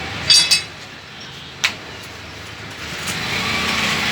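Two quick metallic clinks with a short ring, then a single sharp click a little over a second later, over steady background noise that grows louder near the end.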